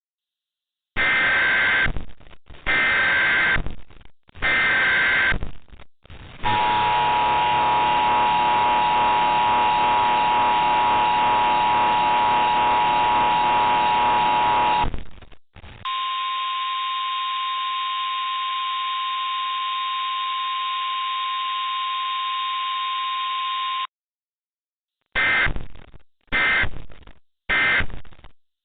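Emergency Alert System sequence. It opens with three harsh, screeching SAME header data bursts, then the two-tone EAS attention signal holds steady for about eight seconds. A single-pitch alert tone follows for about eight seconds, like the weather-radio warning tone. Three short end-of-message data bursts close the sequence.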